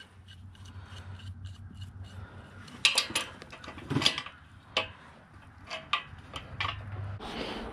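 Metal clinks and taps of a large open-end wrench against a bolt and nut on the steel frame of a folding engine hoist, as the wrench is fitted over the nut. The clicks are scattered and irregular, starting about three seconds in.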